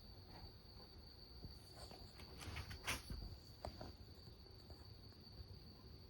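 Near silence: quiet room tone with a faint steady high-pitched whine and a few soft taps around the middle, the clearest about three seconds in.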